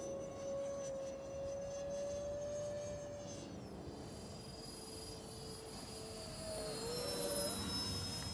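Twin 64 mm electric ducted fans of a radio-controlled A-10 model jet whining steadily in flight overhead. The pitch drops about halfway through and climbs again near the end.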